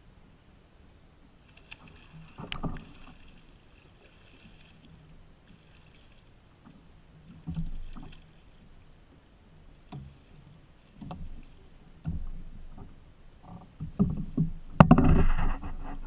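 A hooked striped bass splashing at the surface beside a fishing kayak as it is reeled in and landed, with reel winding and knocks against the plastic hull between splashes. The loudest splashing comes near the end as the fish is brought alongside.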